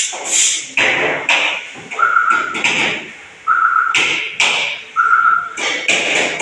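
Repeated hammer blows on metal, roughly one every half second to a second, several leaving a short metallic ring.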